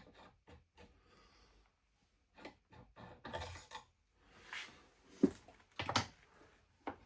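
Small steel lathe accessories being handled and fitted: scattered knocks and clicks of metal parts, with light rubbing between them, the sharpest knock about five seconds in.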